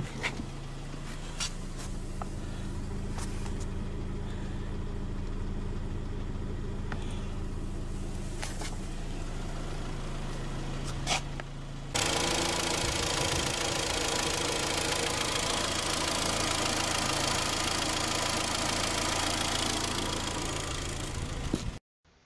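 Freshly rebuilt Hyundai G4KD 2.0-litre petrol engine idling steadily, with light fuel-injector ticking and no knock. About halfway through, the sound turns louder and hissier, then cuts off abruptly near the end.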